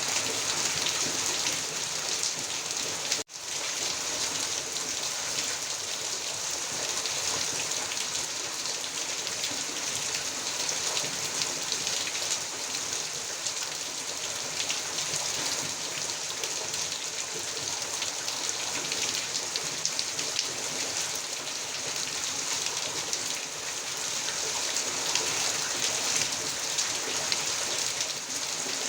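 Heavy rain falling steadily, a dense even hiss of drops. About three seconds in the sound cuts out for an instant before carrying on unchanged.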